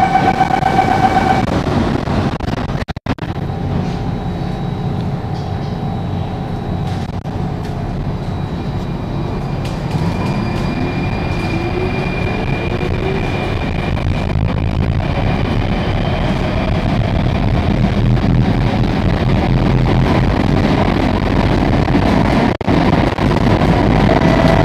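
Inside a Singapore MRT Circle Line train: steady door-closing warning tones sound for about the first second and a half. About ten seconds in, the electric traction motors whine, rising in pitch as the train pulls away. The running noise then builds steadily as it speeds up into the tunnel.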